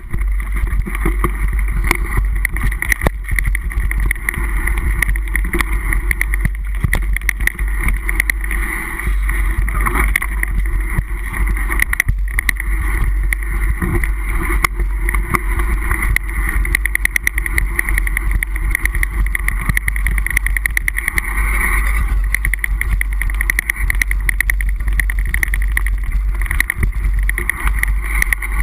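Mountain bike rolling fast over a rough dirt trail, heard through a body-mounted action camera: a heavy steady rumble of wind and tyre noise with constant clicks and knocks as the bike and camera jolt over bumps.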